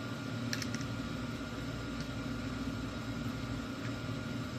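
Steady low mechanical hum in a small room, with a few faint light clicks about half a second and two seconds in.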